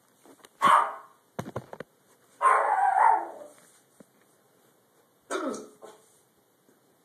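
A person hiccupping: loud, sharp vocal hics, four in all, one drawn out for nearly a second, with a quick run of clicks between the first two.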